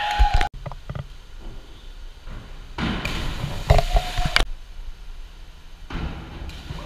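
Divers splashing into a pool, with shouts from teammates on the deck, in three short bursts that each cut off abruptly: one ending just after the start, one around three to four seconds in, and one building near the end.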